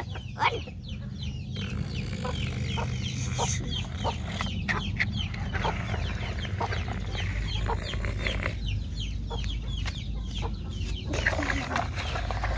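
Chickens clucking with many short chirping calls, over a steady low rumble.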